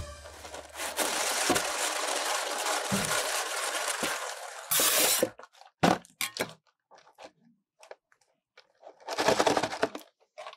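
Cardboard Magnum ice cream box handled in gloved hands: crackling and scraping of the carton. A rush of noise fills the first four seconds or so, then come a loud burst about five seconds in, scattered short crackles, and another burst about nine seconds in.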